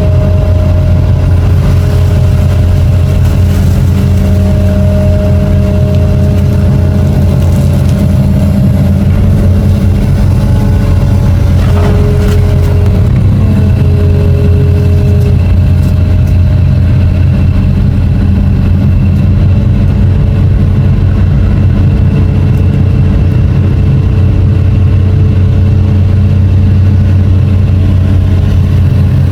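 Long reach excavator's diesel engine running steadily while working, a loud, even hum with thin whining tones that fade in and out above it.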